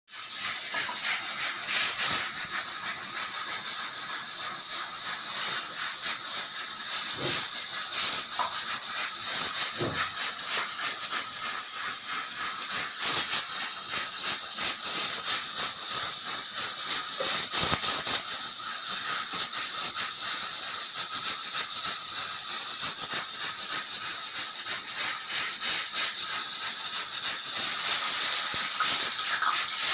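Pressure cooker steam hissing steadily, mixed with potatoes sizzling in hot oil, with scattered crackles and pops.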